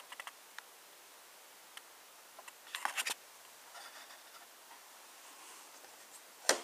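Quiet room tone with a few faint clicks and taps of handling, then one sharper tap near the end as a hand takes hold of a small metal tin.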